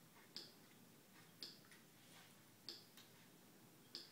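Key clicks from a Lightwriter text-to-speech communication aid as its keyboard is tapped with one finger, letter by letter, while a word is spelled out: four sharp clicks about a second apart, with fainter clicks between.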